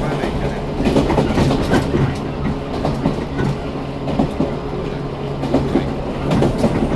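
JR 115 series electric train running, heard from inside the car: a steady running hum with wheels clacking irregularly over the track joints.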